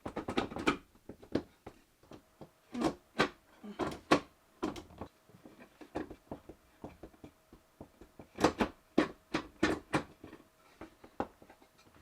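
Irregular knocks, clicks and clatter of things being handled and set down, busiest in two spells, about three seconds in and again past eight seconds.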